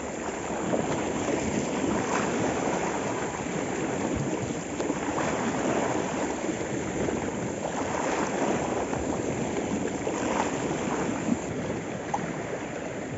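Small sea waves washing and splashing over shoreline rocks: a steady rushing wash, with some wind.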